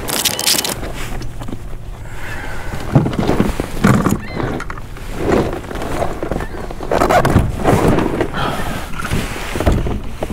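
Irregular thumps and rustling as a landed coho salmon is handled into a fish bag on a kayak.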